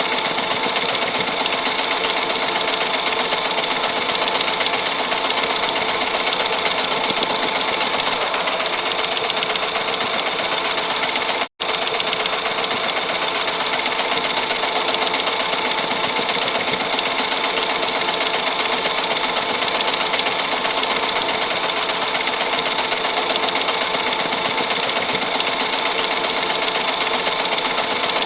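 Vintage movie film mechanism running steadily with a continuous mechanical whir, cutting out for an instant about eleven seconds in.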